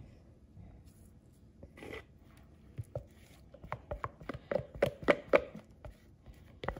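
Irregular clicks and knocks from a clear plastic mixing cup handled in gloved hands while resin is poured from it. They come several a second and grow busier from about three seconds in.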